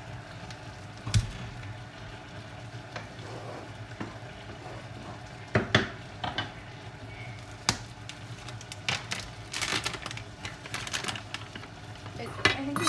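A wooden spoon stirring thickening sweet and sour sauce as it simmers in a frying pan, with scattered scrapes and knocks against the pan, over a steady low hum.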